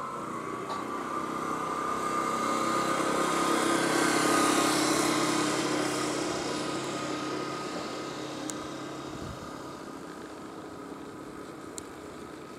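A motor vehicle engine passing by, growing louder to a peak about four seconds in and then slowly fading, with two faint ticks near the end.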